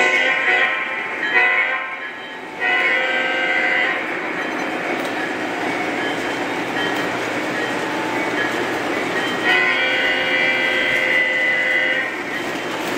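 Model freight train running past, its diesel locomotive's sound system blowing the horn: three blasts in the first four seconds and a longer one from about nine and a half seconds in, over the steady rolling noise of the cars on the track.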